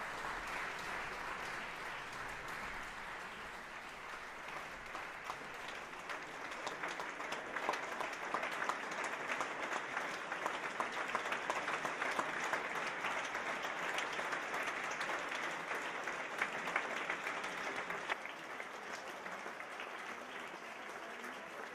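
Audience applauding: dense, steady clapping from a full hall, growing stronger towards the middle and easing off a little near the end.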